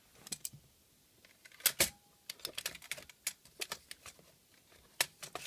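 Aluminium Trangia cook-set parts clinking and knocking together as they are handled: scattered light clicks, with the loudest clatter about a second and a half in, followed by a brief ring, and another cluster of clicks near the end.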